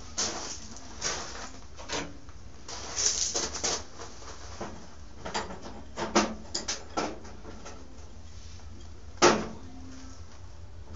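Scattered knocks and clicks of metal parts being handled and set down, over a steady low hum, with one sharp knock about nine seconds in.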